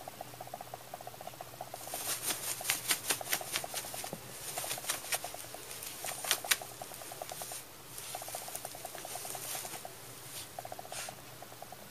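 A white paper bag crinkling and crackling in quick rustles as a cat wriggles against it and kicks at it, busiest from about two seconds in until about seven seconds in, with more rustles later. Under it a fast pulsing hum comes and goes in spells of about a second.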